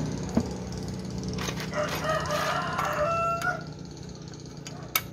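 A rooster crowing once, about two seconds in, for a second and a half and ending on a held note. A few sharp metallic clicks come from the scooter's kick-start lever being handled.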